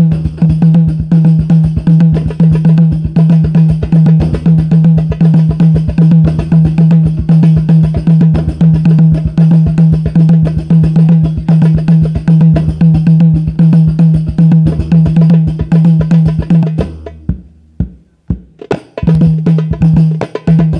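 A hadroh ensemble of frame drums and bass drum playing a fast, dense rhythm through a PA system. The playing stops about seventeen seconds in, followed by a few scattered hits near the end.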